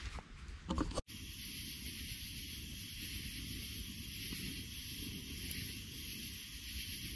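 Brief rustling and handling of a waxed canvas pack, then an abrupt cut about a second in to a steady, even hiss.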